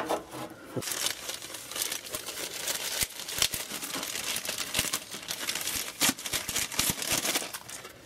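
Crinkling and rustling of the packaging around a replacement furnace control board as it is handled, with scattered small clicks and knocks.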